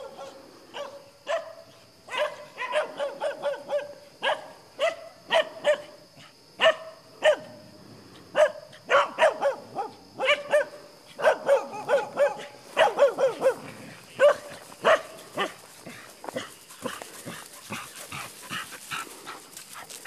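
Dogs barking repeatedly in quick, short barks that come thick for most of the stretch, then thin out and soften over the last few seconds.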